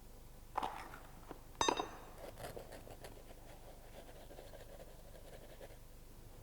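Faint handling of slump-test tools and concrete: a soft knock, then a sharper clink with a brief ring about a second and a half in, followed by faint scraping and rustling.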